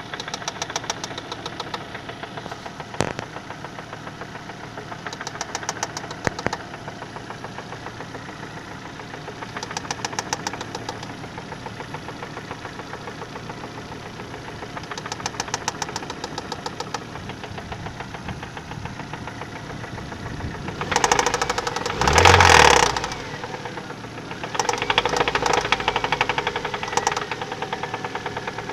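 Mazda FP-DE 1.8-litre four-cylinder engine running with a fast, even knocking tick that comes and goes louder every few seconds; the source of the knock is unknown to the owner. Near the end the engine gets much louder for a couple of seconds.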